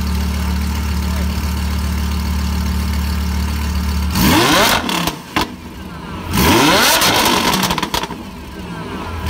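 Lamborghini Huracán's V10 engine idling steadily, then revved: a quick blip about four seconds in, a longer rev held and let fall around six seconds, and a third rev rising at the very end.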